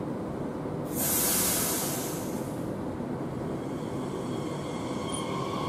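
Transilien Z50000 (Francilien) electric multiple unit at a platform: a sudden loud air hiss about a second in, then its traction motors start to whine, growing louder near the end as the train begins to pull away.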